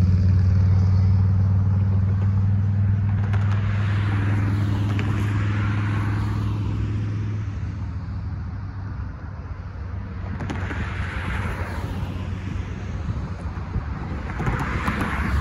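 Cars passing over the grade crossing: three swells of road and tyre noise that rise and fall, around five, eleven and fifteen seconds in. Beneath them a steady low engine hum runs for the first seven seconds or so, then fades.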